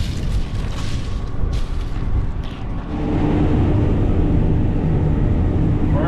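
Cotton stripper running while harvesting: a low rumble, with gusty rushing noise early on, which gets louder about halfway in as a steady hum joins it.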